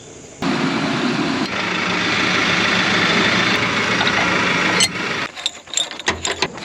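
Tractor engine running close by, starting abruptly about half a second in and holding steady, then giving way to a series of sharp metallic clicks and knocks near the end.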